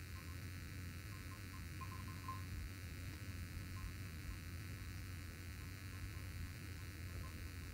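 Faint steady low hum under a soft background hiss, with no distinct event.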